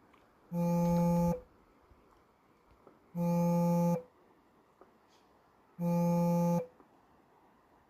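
An electronic tone held at one steady pitch sounds three times, each lasting under a second and repeating about every two and a half seconds, with sharp starts and stops.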